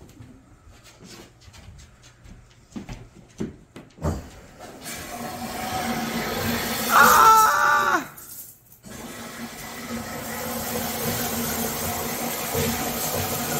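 Water spraying from an overhead rain shower head during a shower test: a steady hiss that builds about five seconds in, dips briefly near eight seconds, then runs on steadily. A short, loud squeal, falling in pitch at its end, comes about seven seconds in, after a few light knocks and clicks at the start.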